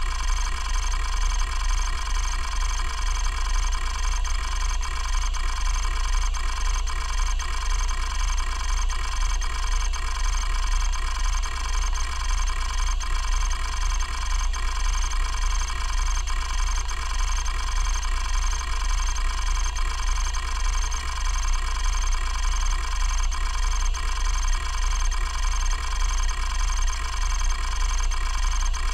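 Kalok KL3100 105 MB stepper-motor hard drive running and reading: a steady spindle hum with a high whine, and faint quick ticks from the stepper head actuator as it seeks.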